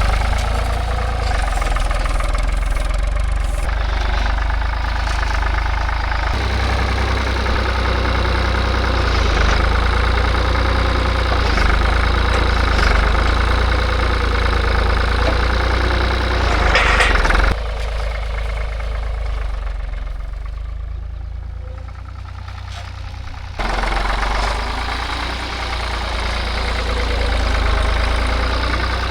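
Farm tractor engine running as it picks up and loads big hay bales onto a trailer, a steady low rumble that changes abruptly a few times.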